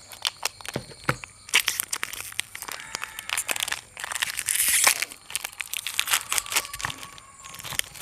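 Crinkling and tearing of plastic Oreo biscuit wrappers, with rustling noise twice, the louder about four seconds in. Sharp clicks and taps of biscuits and a spoon against a steel mixer jar run throughout.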